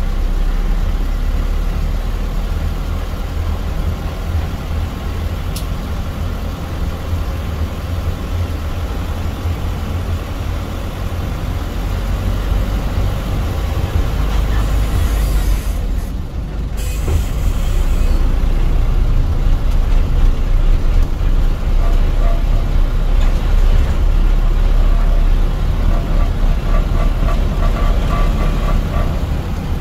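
Shuttle bus driving, heard from inside the cabin: a steady low engine and road rumble that grows louder about two-thirds of the way through.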